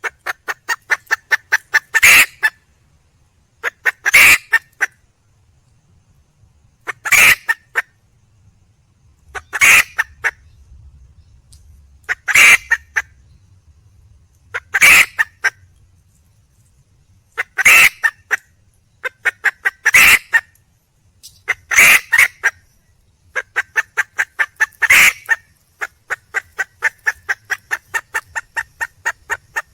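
Wild red junglefowl hen calling for a male: quick runs of clucks at several a second, broken by a loud single call about every two to three seconds.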